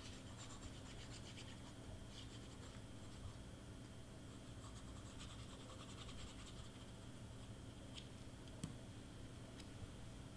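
Faint scratching and rustling of cardstock being handled and pressed down by hand, with a few light ticks near the end.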